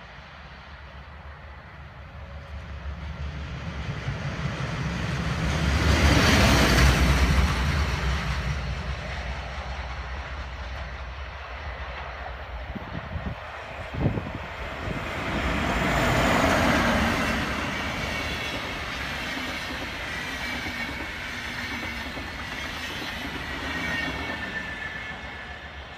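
A train passing, loudest about six seconds in and again around sixteen seconds, with a single sharp knock between the two. Near the end its wheels squeal in thin, high tones.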